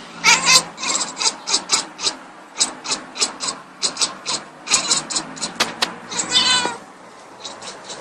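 Cat chattering at a bird it is watching: a quick run of short clicking chirps, about three or four a second, then one longer meowing call about six seconds in.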